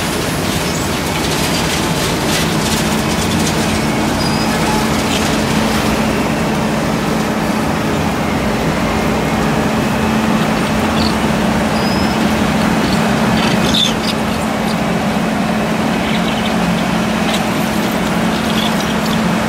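Wirtgen W 250i cold milling machine running and milling the old asphalt pavement: a loud, steady mechanical din with a steady hum from about two seconds in and scattered crackles.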